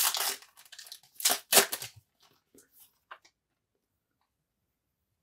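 Foil wrapper of a trading card pack being torn open: two crinkly rips in the first two seconds, then a few faint rustles before it goes quiet.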